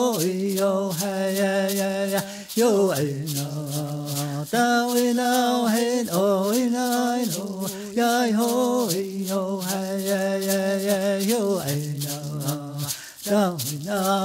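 A voice chanting in long held, wavering notes with short breaks, over a rattle shaken in a steady rhythm.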